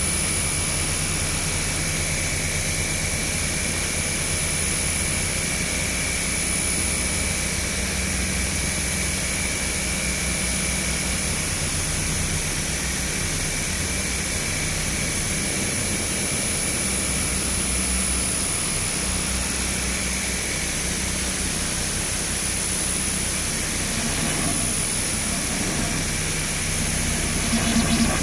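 Experimental electronic drone played from laptops: a steady, engine-like low rumble that flutters rapidly, with a thin high whistle and hiss above it. It swells briefly near the end.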